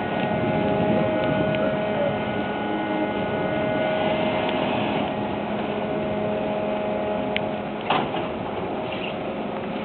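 Steady mechanical hum with several held tones over a constant rumble, and one short knock near the end.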